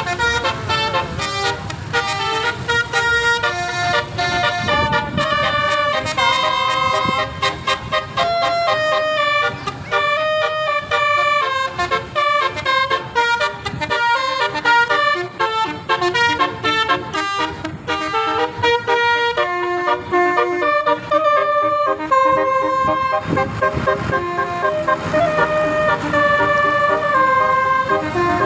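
Tour bus's basuri telolet horn playing melodic tunes: a series of short and held horn notes that keep stepping up and down in pitch.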